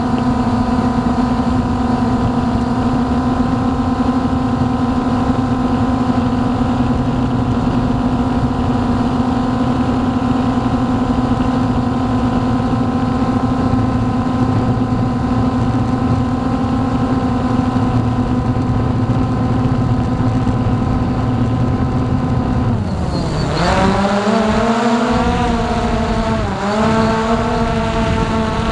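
Hubsan X4 Pro quadcopter's motors and propellers running at a steady high hum in flight. About 23 seconds in the pitch drops sharply and swoops back up, with a second short dip a few seconds later, as the throttle changes.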